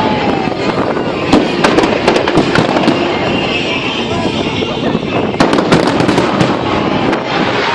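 Aerial fireworks bursting in quick succession: many sharp bangs and crackles over a continuous rumbling noise, with crowd voices underneath.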